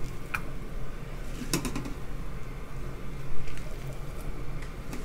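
Handfuls of squeezed-out daikon radish strips dropped into an enamel bowl: a few scattered soft taps and squishes, with a small cluster about one and a half seconds in.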